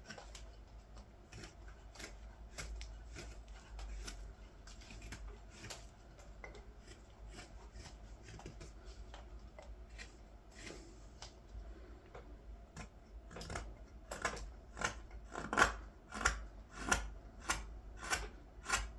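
Carving knife taking short slicing cuts in green wood, shaping the back of a ladle bowl. The cuts are faint at first, then from about two-thirds in come louder and crisper, about three every two seconds.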